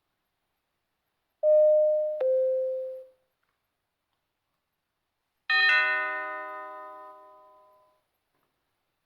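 Two-tone ding-dong doorbell chime: a higher note, then a lower one, dying away within about two seconds. A few seconds later a second, richer bell-like chime with several tones at once rings out and fades over about two and a half seconds.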